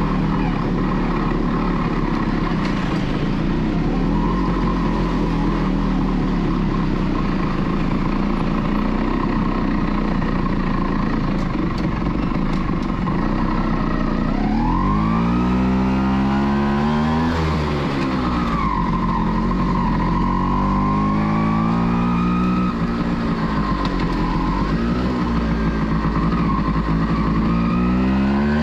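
1989 Kawasaki B1's two-stroke single-cylinder engine running at low revs with street traffic around it. From about halfway it pulls away, its pitch climbing steeply and dropping back several times as it accelerates through the gears.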